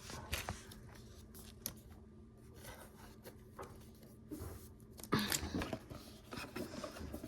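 Faint rustling and small clicks of a trading card being handled and slid into a plastic card sleeve, with a louder burst of handling noise about five seconds in.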